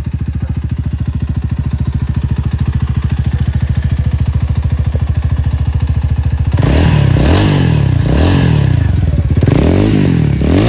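Rusi Titan 250i (Loncin AC4) motorcycle engine idling with a steady, even pulse, then revved about six and a half seconds in: several throttle blips, the pitch rising and falling each time.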